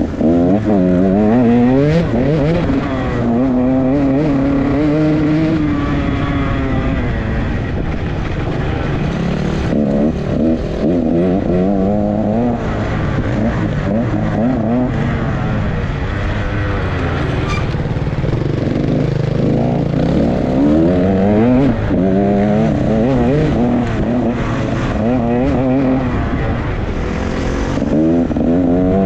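Dirt bike engine heard up close from the rider's own bike, its pitch climbing and dropping again and again as the throttle is opened and closed and the gears change around the track.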